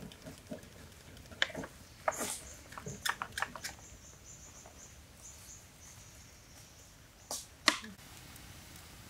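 Scattered light clicks and taps from cooking at an iron wok over a small wood fire, with two sharper knocks near the end.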